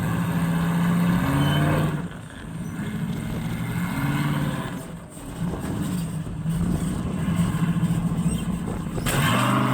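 Off-road UTV buggy engine revving up and down under load while rock crawling, its pitch rising in short pushes and dropping back between them.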